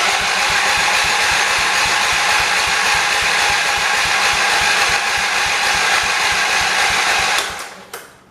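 1978 John Deere 208 garden tractor's engine turning over on the electric starter without firing: a steady, fast, even chugging that runs about seven seconds and stops near the end. It is being cranked with the fuel line pulled off to see whether the fuel pump pushes gas through, and none comes.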